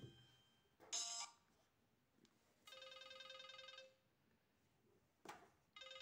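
Nokia 100 mobile phone playing short ringtone previews from its built-in ringtone menu. The previews are cut short as the list is scrolled: a brief burst about a second in, a warbling electronic ring lasting about a second in the middle, a click, then another short burst near the end.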